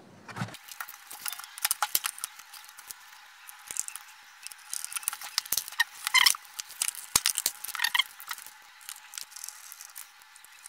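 Handling noise as a JBL Xtreme speaker's fabric grille is fitted over its plastic body: fabric and plastic scraping and rubbing, with scattered clicks and taps, the loudest around the middle.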